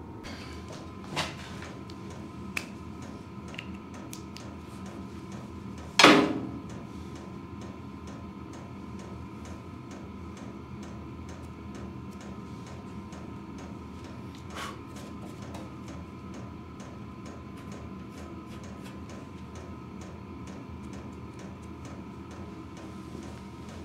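Steady workshop hum with faint, regular ticking, a few light clicks, and one sharp knock about six seconds in as a hand tool is worked against the steel body panel.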